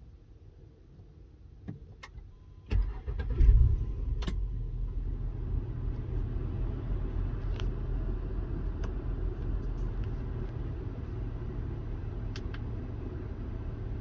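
A car engine starting: a couple of clicks, then about three seconds in a short crank and a loud catch, after which it settles into a steady idle.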